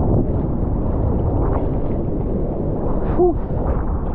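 Choppy seawater sloshing and splashing around a bodyboard and a camera held right at the water's surface, with wind on the microphone. A short tonal blip about three seconds in.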